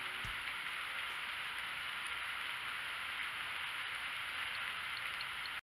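Steady rain, an even hiss with a few faint drips, which cuts off abruptly near the end.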